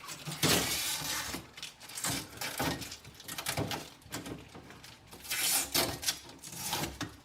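Irregular rustling and scraping with a few light knocks: the protective plastic on a refrigerator's glass shelves being handled.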